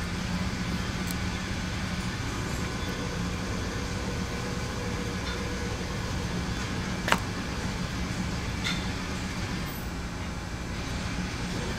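Steady low background hum of a workshop, with one sharp click about seven seconds in and a fainter click a second and a half later.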